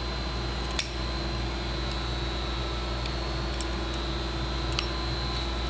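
Steady background hum, with a few small metal clicks as locking pliers (vise grips) twist and pull a pin out of a rifle's trigger-guard tab in its wooden stock, one about a second in and another near the end.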